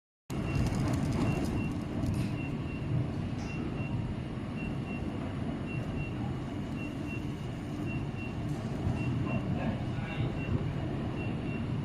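Steady machinery hum and noise of a production floor during induction brazing work. A short high electronic beep repeats about two to three times a second.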